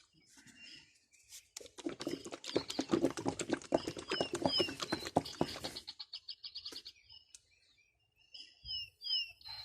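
A container of car paint polish being shaken hard for about four seconds, its liquid contents rattling and sloshing with rapid strokes. Birds chirp in the background, with a quick trill after the shaking stops.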